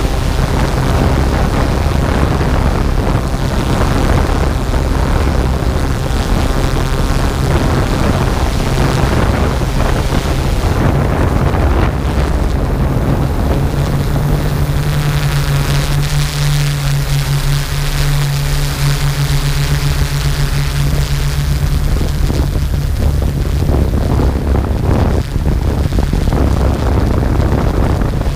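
Multirotor drone's motors and propellers humming steadily, with a strong low tone that swells for several seconds midway as it manoeuvres.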